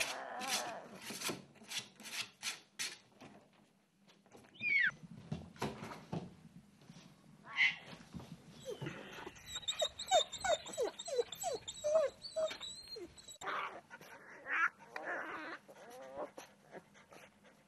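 Young animals crying: a few separate short cries, then a quick run of about eight short cries around ten seconds in, among soft clicks and rustles.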